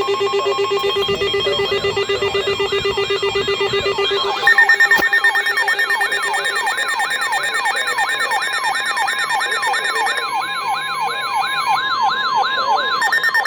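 Weather alert receivers sounding together for a severe thunderstorm warning. A steady warning tone runs throughout, a pulsing beep joins it in the first few seconds, and from about four seconds in a siren-like alarm warbles rapidly, sweeping about four times a second.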